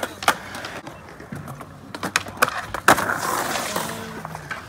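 Skateboard on concrete: several sharp board clacks and impacts, the loudest about three seconds in, followed by the rough noise of wheels rolling across the concrete.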